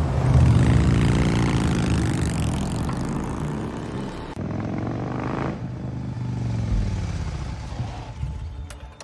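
BMW F800 motorcycle's parallel-twin engine accelerating, its pitch climbing as it pulls away. About four seconds in, a second run-up rises and breaks off sharply about halfway through, then the engine note tapers off toward the end.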